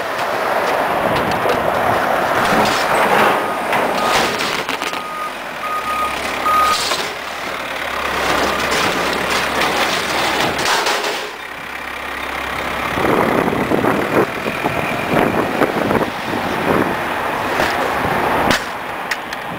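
Scrap-yard noise: a vehicle's reverse-warning alarm beeps three times a few seconds in over a low engine hum, with metal scraping and knocking later on.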